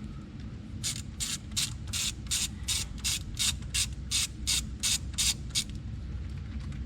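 Socket ratchet clicking in short, even strokes, about three a second, as a 10 mm bolt on the engine is backed out; it stops near the end.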